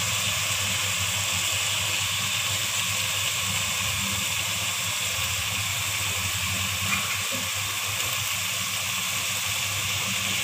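Steady hissing sizzle of a steel pot of chicken and onion-tomato masala cooking on a gas stove, with beans and ginger just added. A light click about seven seconds in.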